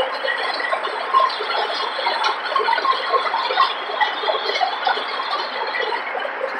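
Pull-type mower-conditioner cutting standing oats: a fast, busy ticking clatter from the reciprocating sickle knife and reel.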